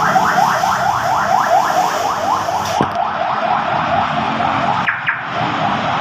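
Aftermarket car alarm siren sounding on a Honda Civic: a fast run of rising whoops, several a second, that changes to a different tone about three seconds in.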